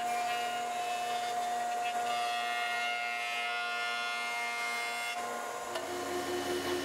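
Jointer running with a steady high whine while a rough maple board is pushed across its cutterhead. About five and a half seconds in, the sound switches to another woodworking machine's lower steady tone.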